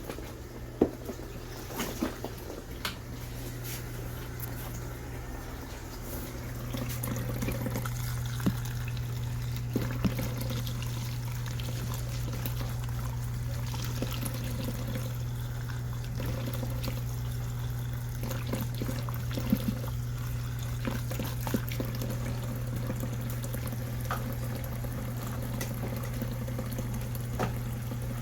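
Portable mini washing machine running with water in the tub: a steady low motor hum under sloshing and splashing water, growing louder about six seconds in.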